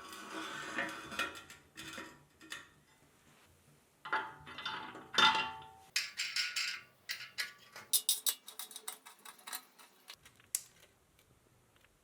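Metal parts clinking and clattering as they are handled: a run of sharp knocks and light ringing clinks, quickening to rapid ticks in the second half, then tapering off near the end.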